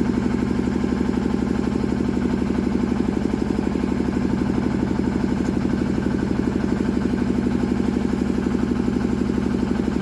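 An engine idling steadily, with a rapid, even chugging beat.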